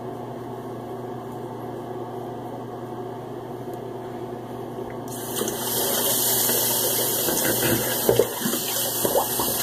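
A steady hum, then a sink tap turned on about halfway through, running water hissing over it, with a few light knocks near the end.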